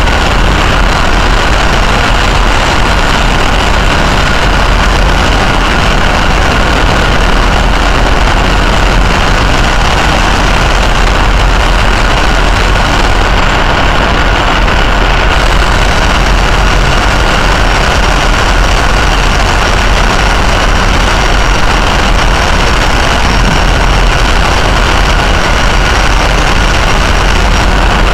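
Helicopter turbines idling on a helideck with the rotor turning: a steady, loud running noise with a constant high whine over a deep rumble.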